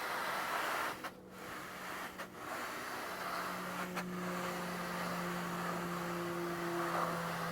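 An engine running steadily with a low hum under a hiss, broken by two short dips about one and two seconds in and a single click near four seconds.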